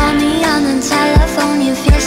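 Background pop-style music: a melody over sustained notes, with low bass hits.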